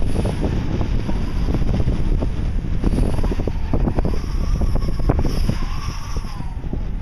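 Wind buffeting the microphone with a steady low rumble. A faint whine rises and falls in pitch about two-thirds of the way through: a speed kite cutting through the air as it streaks past.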